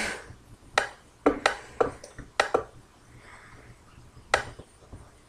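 A run of sharp clicks and taps close to the microphone, irregular, about eight in the first three seconds and one more just past four seconds.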